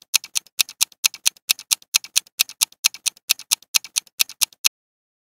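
Clock-ticking sound effect counting down a quiz timer: a fast, even run of ticks, about four to five a second, alternating stronger and weaker strokes, that stops shortly before the end.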